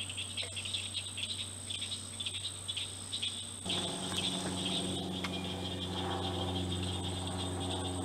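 Insects chirping in a fast pulsing chorus with a steady high whine. About halfway through, a steady low hum starts abruptly underneath.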